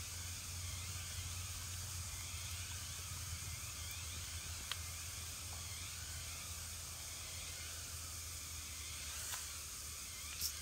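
Steady background hiss with a low hum underneath, broken by a few faint clicks, the loudest near the end.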